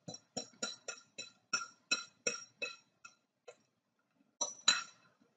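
A glass mixing bowl ringing with a short glassy tone under light taps from a utensil scraping out the last of the beaten eggs. There are about three taps a second for three seconds, then two more near the end.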